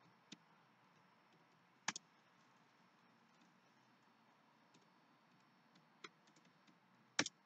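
Near silence broken by a few sharp clicks of computer keys being typed, including a close pair about two seconds in and a louder pair near the end, with fainter ticks between.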